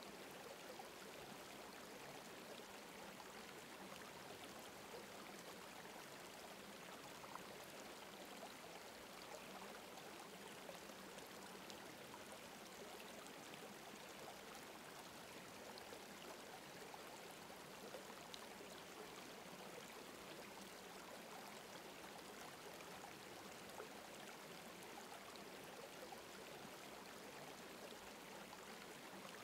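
Near silence with a faint, steady sound of running water, like a gently flowing stream.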